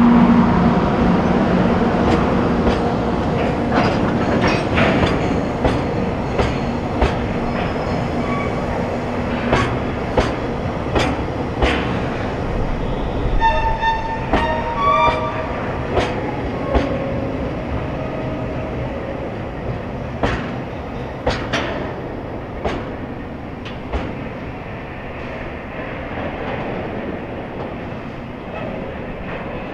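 Freight train of Taki oil tank wagons rolling past close by: a steady wheel rumble with regular clickety-clack as the bogies cross rail joints, and a brief high ringing tone near the middle. A steady hum from the locomotive fades out in the first couple of seconds, and the whole sound eases slowly toward the end.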